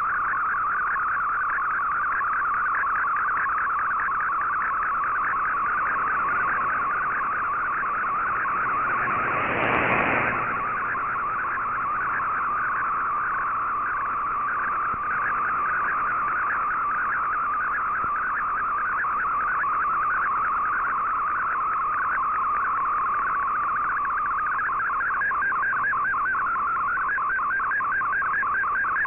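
Shortwave MFSK digital picture transmission received on an Icom IC-R8600, heard as a dense warbling band of tones while Fldigi decodes the image. A brief burst of noise comes about ten seconds in.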